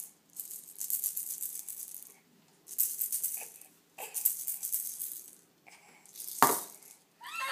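A plastic baby rattle is shaken in three short bouts of high, fine rattling. A single sharp knock follows about six seconds in.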